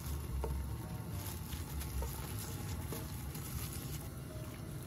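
Pot of bone broth for beef yukgaejang bubbling on the stove, a steady low rumble with a few faint light ticks.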